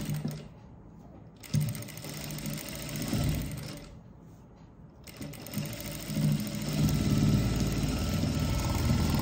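JACK industrial sewing machine stitching fabric in stop-start runs. It pauses twice briefly while the fabric is turned, then runs steadily from about two-thirds of the way in.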